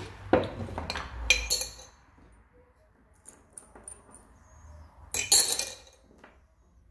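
Metal tools and parts clinking and clattering against one another in a workshop: a cluster of knocks and clinks in the first second and a half, then another short cluster about five seconds in.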